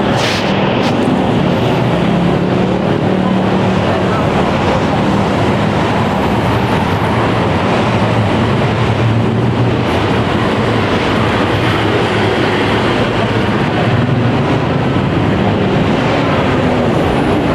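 Loud, steady roar of busy city street traffic, with engines running low underneath and a brief sharp noise just at the start.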